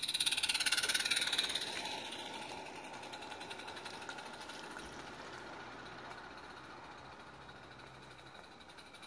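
Small live-steam garden-railway locomotive running with a rapid, even chuffing beat, loudest in the first two seconds and then fading steadily as it moves away.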